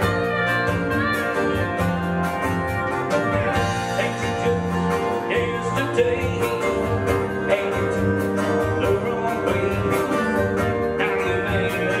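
Live country band playing a song: acoustic and electric guitars, electric bass and a drum kit keeping a steady beat.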